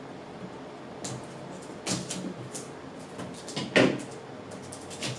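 Cardboard box being slit open with a pocket knife: scattered scrapes and knocks of blade and cardboard, the loudest a brief scrape about four seconds in.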